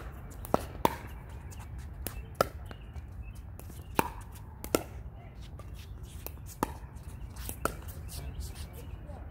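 Pickleball rally: hard paddles striking a hollow plastic pickleball, with the ball bouncing on the hard court, giving a string of sharp pops at uneven intervals.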